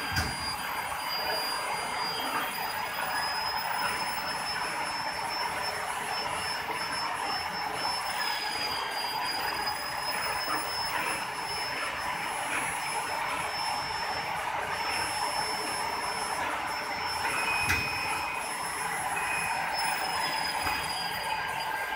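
Hydraulic power unit of a two-station rubber molding press running: a steady mechanical whir of motor and pump with a thin high whine, broken by a sharp click at the start and another about 18 seconds in.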